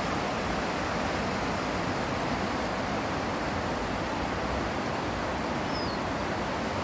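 A steady, even rushing noise with no breaks, with a brief faint high chirp near the end.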